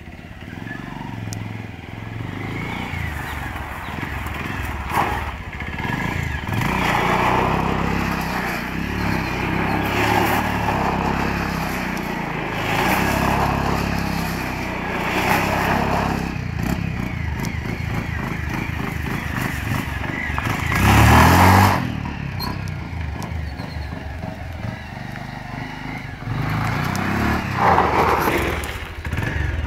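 Bajaj Pulsar 150's single-cylinder four-stroke engine running and revved up repeatedly, each rev swelling and falling back. The loudest rev comes about two-thirds of the way through.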